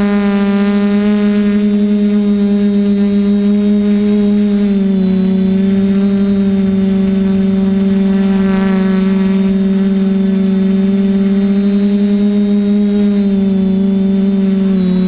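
TBS Discovery clone quadcopter's electric motors and propellers in flight, heard from the camera on board: a loud, steady buzzing hum. The pitch dips slightly about five seconds in and rises again near the end as the throttle changes.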